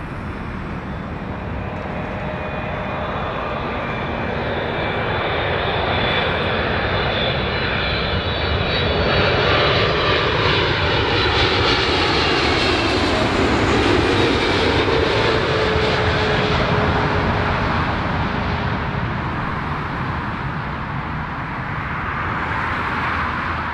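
Kuwait Airways Boeing 777-300ER's twin GE90 jet engines on final approach, passing low overhead. A whining jet noise builds, is loudest about ten to fifteen seconds in with its pitch sliding down as the aircraft passes, then eases off.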